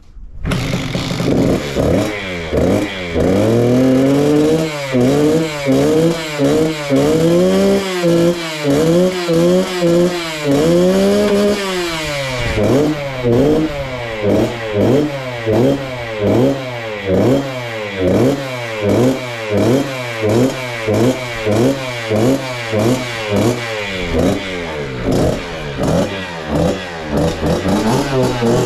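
Suzuki RM65's 65 cc two-stroke single-cylinder engine running and being revved again and again, each blip of the throttle rising and falling in pitch; after about twelve seconds the blips become quicker and shorter, a little over one a second. The engine is being test-run after its carburettor, reeds and fuel tank were cleaned to cure a bog.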